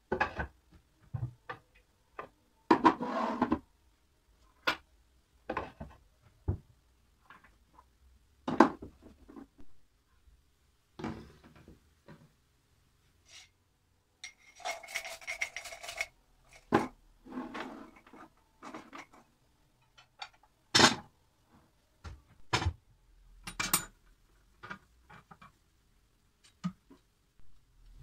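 Bowls and plastic food containers being handled on a cabinet shelf: scattered knocks and light clatters, a few of them sharp. About halfway through comes a couple of seconds of rubbing and scraping.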